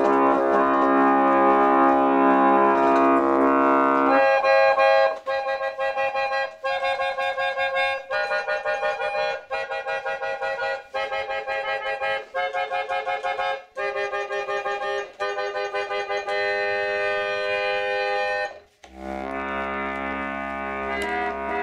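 Victorian Charles Idle harmonium, a pedal-pumped reed organ with its bellows patched with soft leather, being played. A held chord with bass notes for about four seconds gives way to quick, short repeated chords higher up in phrases about a second and a half long, then a brief break near the end and another held chord.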